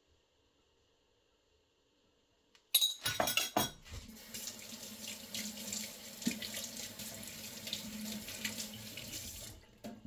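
A few sharp knocks, then a kitchen tap running steadily into the sink for about six seconds and shut off near the end.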